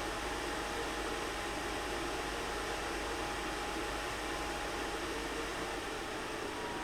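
Cooler Master Mobius 120 OC 120 mm PC fan running at high speed, a steady rush of air with a faint whine, easing slightly near the end.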